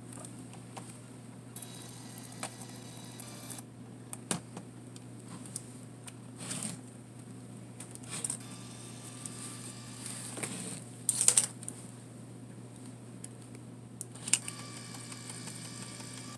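Olympus Camedia C-4040Z zoom lens motor whirring and clicking as the lens drives in and out, the camera cycling on and off on a battery too low to hold it. Two stretches of whirring, one early and one near the end, among scattered clicks, the loudest about eleven seconds in.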